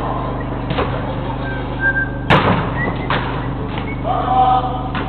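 Several sharp knocks of a football being played on a five-a-side pitch, the loudest a little over two seconds in, over a steady electrical hum.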